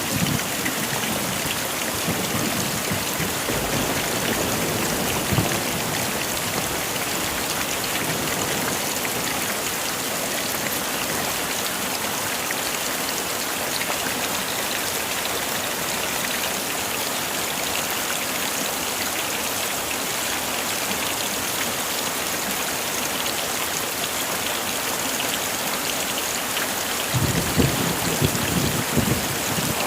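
Heavy rain falling steadily. Low rolls of thunder fade out in the first second and come in again near the end.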